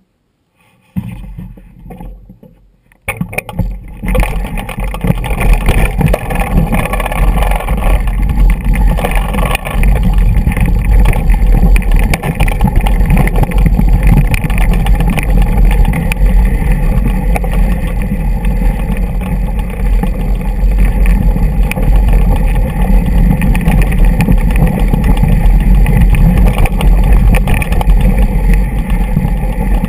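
Wind buffeting a GoPro action camera and mountain bike tyres rattling over loose rock on a fast descent, as a loud continuous rumble with clattering over it. It starts faintly about a second in and turns loud about three seconds in.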